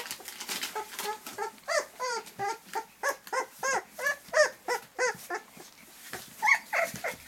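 Two-week-old golden retriever puppy whimpering: a run of short, high, squeaky cries, about two or three a second. The cries break off about five and a half seconds in, and a couple more follow near the end.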